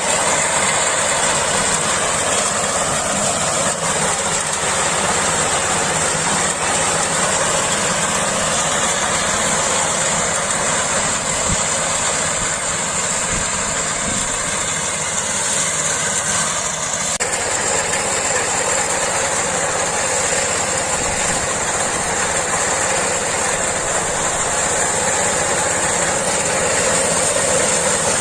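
Rice combine harvester's engine and machinery running steadily, with a constant high whine over the engine noise; the sound shifts slightly a little past the middle.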